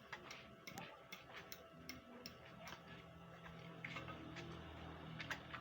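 Faint, unevenly spaced light clicks and ticks, about two or three a second.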